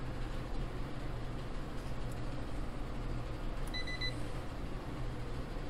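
One short electronic beep about four seconds in from a Cen-Tech handheld infrared thermometer as it takes a reading, over a steady low room hum.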